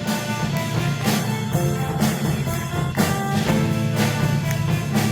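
Instrumental stretch of an upbeat pop song, with a steady beat about once a second under short repeating melody notes.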